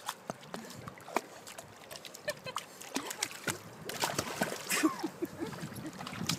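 Small dog paddling with its front legs in shallow lake water, splashing again and again as it tries to swim. A short cry rises above the splashing a little past the middle.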